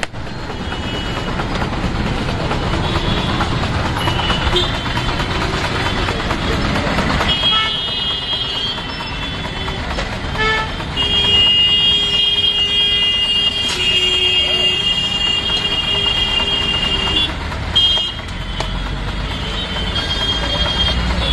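Busy roadside street noise: steady traffic with people talking, and vehicle horns sounding on and off, one held for several seconds in the middle.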